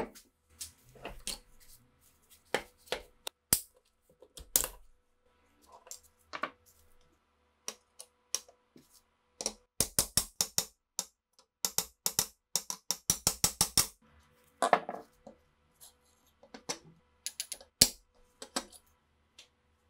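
Hammer tapping a steel pin punch to drive a pin out of a rusty SVT-40 rifle part clamped in a vise: sharp metallic taps, in quick runs around the middle and as single harder strikes near the end, among clanks of the metal parts being handled.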